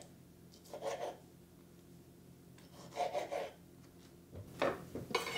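Serrated knife sawing through a Roma tomato on a bamboo cutting board: three short rasping cuts about two seconds apart, the last the loudest, as the tomato is cut into cubes.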